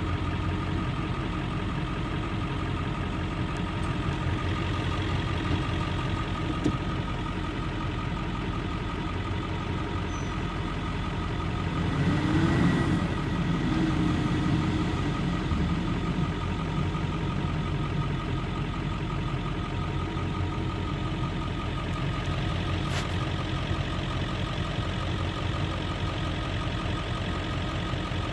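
Engine of corn silage harvesting machinery running steadily with a constant whine. It swells louder for a few seconds about halfway through, then settles back.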